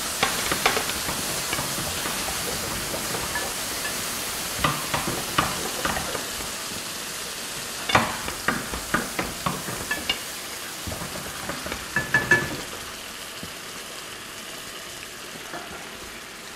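Water poured onto spiced, toasted rice in a hot pan sizzling and bubbling, the hiss slowly dying down. A wooden spoon stirs through it, knocking against the pan in short clusters, loudest about eight and twelve seconds in.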